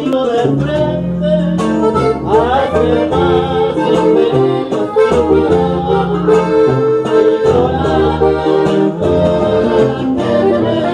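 Live band music led by an accordion, with a strummed guitar-type string instrument and a man singing into an amplified microphone.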